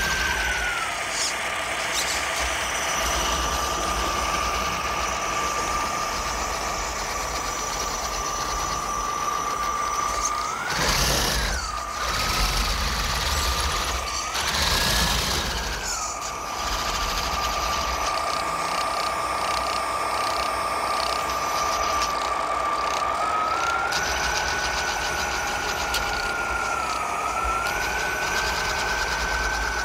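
Custom RC truck with its smoke and sound kits running: a steady whine that steps up in pitch a few times and settles back. Two short bursts of hiss come midway.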